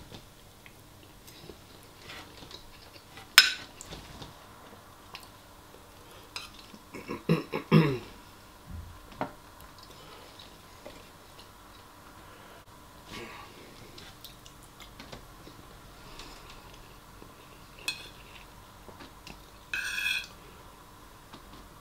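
A metal spoon clinking and scraping against a ceramic bowl while scooping up rice. One sharp clink comes about three seconds in, and a brief high-pitched scrape comes near the end.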